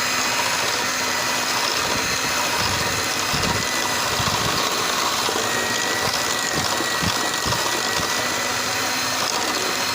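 Electric mixer running steadily at speed, beating an egg into creamed oil and sugar for cake batter. There are a few low knocks about three to four seconds in and again around seven seconds in.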